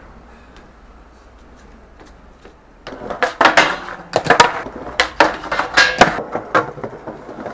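Quiet for about three seconds, then skateboard clatter: wheels rolling over tiled paving and a quick run of sharp, loud clacks and knocks as the board pops, strikes the handrail and slaps down on the tiles in a bailed rail trick.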